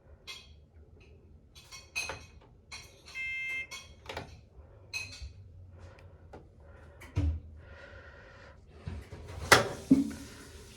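Washing machine being set going: a series of clicks with one short electronic beep about three seconds in, then a loud clunk near the end followed by a steady hiss.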